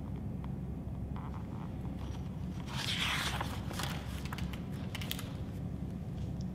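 Stiff picture-book pages being turned, a paper rustle and scrape lasting about a second, about three seconds in, over low room hum.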